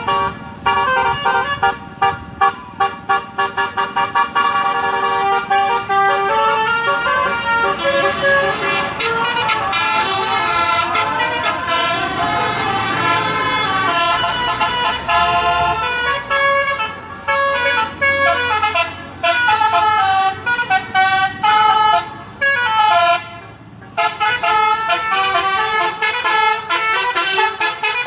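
A tour bus's telolet basuri musical air horn playing a melody. It runs through quick staccato notes in the first few seconds, then longer held chords, cutting in and out with short breaks.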